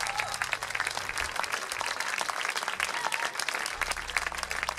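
Audience applauding, a dense patter of many hands clapping, with a low held note from the band sounding underneath at the start and again near the end.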